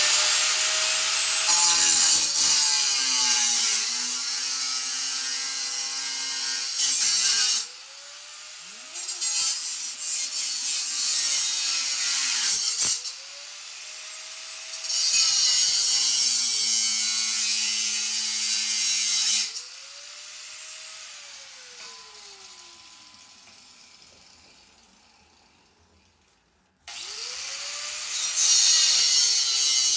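Angle grinder with a sanding disc grinding through a steel chair band in several long bursts, with a hissing rasp. The motor's whine sags in pitch as the disc bites and rises again when it eases off. It winds down about two-thirds of the way in and spins up again near the end.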